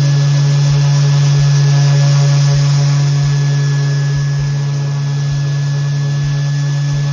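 Electric random orbit sander with a foam pad running on an end-grain wooden board: a loud, steady hum that slides down in pitch at the very end.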